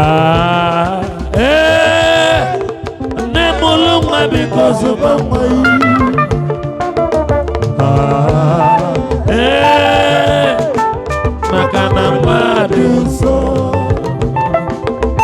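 Live band music: a lead line of long held, wavering notes over a steady drum and percussion groove.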